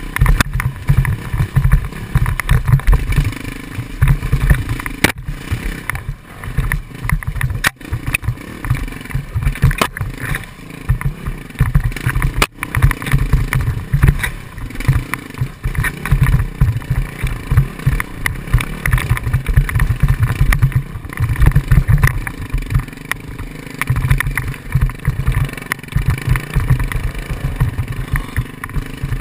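Dirt bike engine revving unevenly as it rides over rough trail, with a few sharp knocks along the way.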